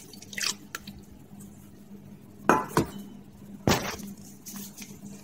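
Metal kitchen utensils clinking against a stainless steel mixing bowl: a few light taps, then three sharper clinks about two and a half to four seconds in.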